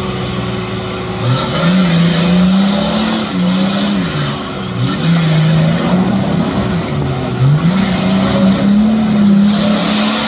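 V8-swapped Nissan Patrol Y60 engine revving hard under load as the 4x4 spins its wheels through deep mud. The revs climb about a second in, sag near the middle, and climb again about three-quarters through.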